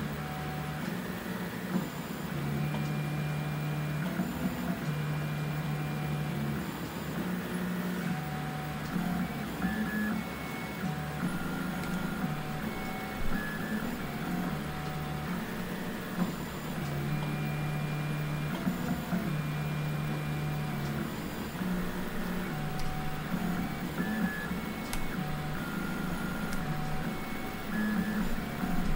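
Bad Robin 3D printer's stepper motors running through print moves while laying down a first layer. Their whine changes pitch and stops and starts every second or so as the moves change.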